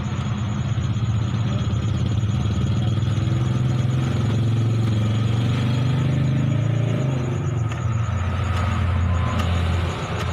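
A motor vehicle engine running close by, steady at first, rising in pitch for a few seconds in the middle, then settling lower again; it eases off just before the end.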